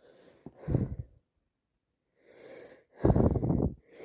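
Loud, noisy breaths from a woman with a head cold: a sharp breath about half a second in, a softer one around two and a half seconds, and a longer heavy one about three seconds in.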